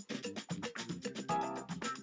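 Background music with pitched notes over a quick, steady beat.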